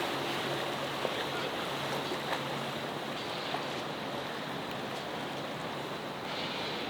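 Steady rushing wash of water, with a boat motor's low hum in the first half.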